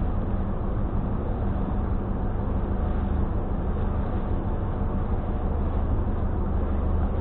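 Steady low engine rumble with a constant hum aboard a car ferry under way.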